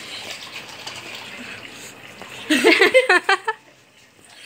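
Water running from the spout of a plastic jerrycan: a steady splashing hiss for the first couple of seconds, after which a voice speaks briefly.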